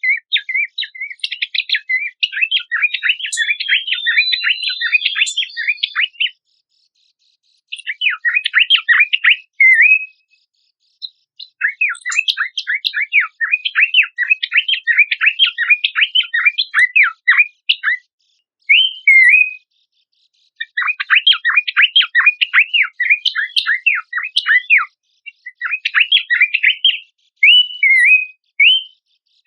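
Pelanduk semak (Horsfield's babbler) singing a fast, chattering song of quick down-sweeping notes. It comes in bursts of several seconds with short pauses between, and a few slurred whistled notes near the end.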